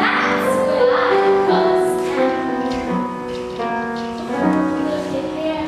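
A musical-theatre cast singing a show tune with instrumental accompaniment.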